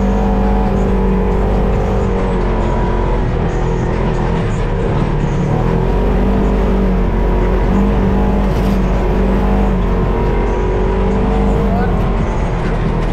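Off-road vehicle engine running steadily at a low, even pitch that rises and falls slightly under small throttle changes.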